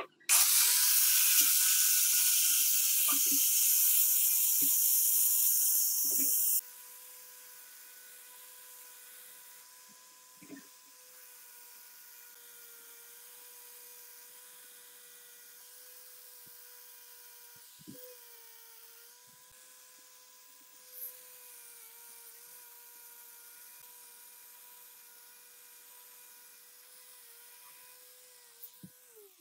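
Electric angle grinder with a wire brush running at a steady whine while it scrubs a transformer's laminated steel core. A loud scraping hiss of the brush on the metal lasts about six seconds, then cuts off, leaving the quieter steady whine with a few light knocks until the grinder stops near the end.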